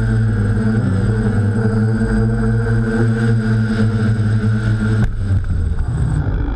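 Hexacopter's electric motors and DJI propellers humming steadily in a low hover. About five seconds in there is a short knock, and the hum changes after it.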